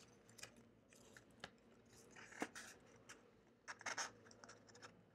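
Faint handling of stiff paper card: soft rustles and a few small clicks as card tabs are folded and pushed into their slots, with a short cluster of them about four seconds in.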